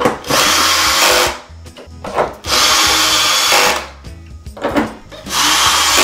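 Cordless drill running in three bursts of about a second each, driving the screws that fasten a TV stand to the back of the set.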